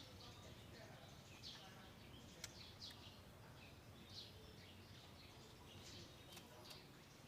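Faint, short, high-pitched chirping calls from a small animal, each sweeping downward, repeated about once or twice a second over a low background hum.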